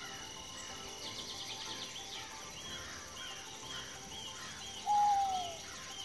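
Outdoor ambience of insects and birds: small repeating chirps and insect trills. About five seconds in, one louder call slides downward in pitch.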